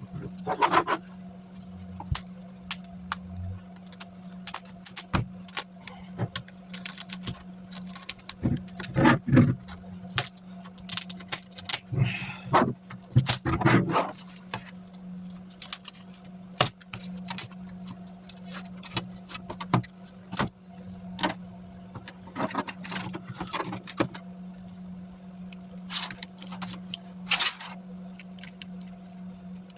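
Hands handling a laptop's screen panel and its parts: irregular clicks, taps and small rattles of plastic and metal, some louder clusters midway, over a steady low hum.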